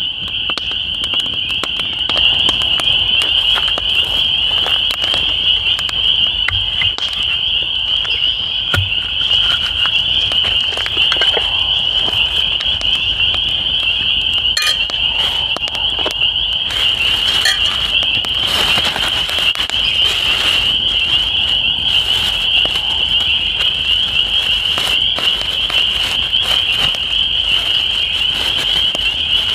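Frogs calling in a dense, unbroken chorus from a pond, a steady high-pitched shimmer. Small campfire crackles come through it, and plastic wrapping rustles for a few seconds just past the middle.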